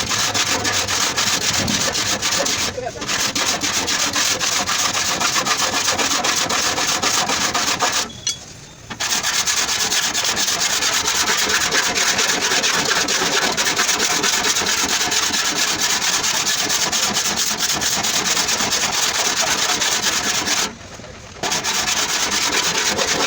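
Sanding on a car's body panel during fender repair: a continuous abrasive rasping that stops briefly three times, about 3 s in, for about a second near 8 s, and again near the end.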